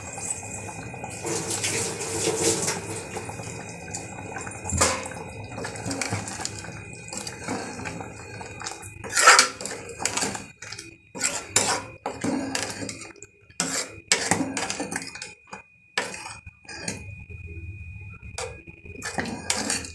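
A metal spoon stirring thick curry in an aluminium pressure cooker, scraping and knocking against the pot's sides and rim in irregular clinks, most of them in the second half.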